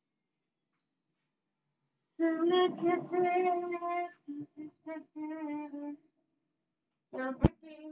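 A woman singing a tune to herself, holding steady notes in short phrases, starting about two seconds in. There is a short phrase again near the end, with one sharp click.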